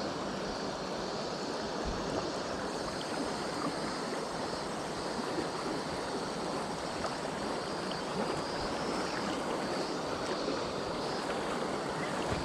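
Steady rush of river current, an even wash of flowing water with no breaks.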